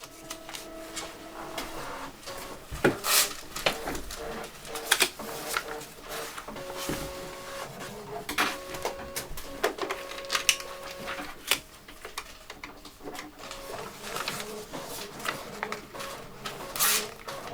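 Office ambience: scattered clicks, knocks and clatter like office machines and desk handling, mixed with short steady electronic beeping tones that come and go.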